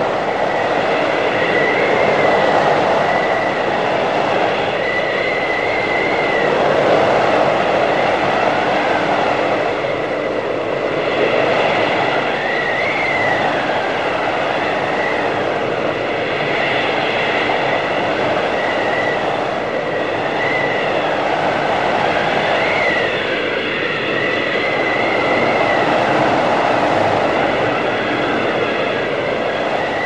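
Blizzard wind blowing hard and without a break, swelling in gusts about every five seconds, with a high whistling note that wavers up and down over it.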